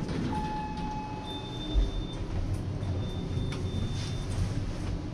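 Hotel elevator lobby: a steady low rumble, a fading chime-like tone near the start and a few short high beeps, with a single thump about two seconds in.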